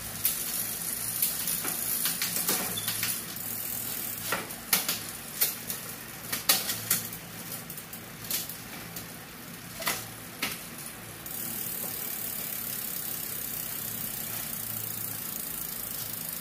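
Mountain bike drivetrain with a triple chainring, worked by hand: the crank is turned and the gears shifted, giving repeated clicks and chain rattle for about eleven seconds. Then the clicks stop and a steady whirring hiss carries on to the end.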